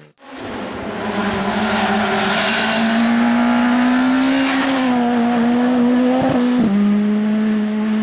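Racing car engine running hard at high revs, its pitch held high and rising slightly, then dropping suddenly about two-thirds of the way through.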